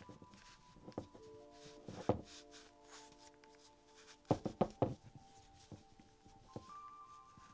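A plastic Wild Hearts Crew doll being handled as crocheted sleeves are fitted onto its arms. Its limbs knock and click a few times: once about two seconds in, then three quick knocks a little past halfway. Soft background music with long held notes plays underneath.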